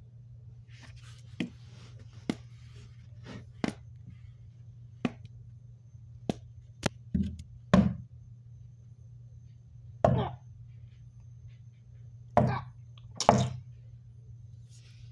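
About a dozen irregular knocks and taps, sparse at first and louder in the last few seconds, over a steady low hum.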